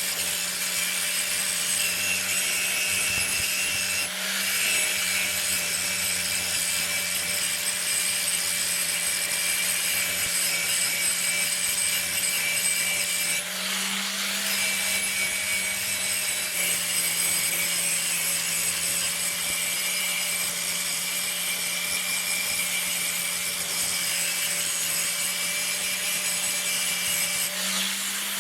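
An electric power tool running steadily and abrading, with a constant motor hum under a bright rasping hiss. The sound shifts briefly a few times, as the tool is pressed on and eased off the work.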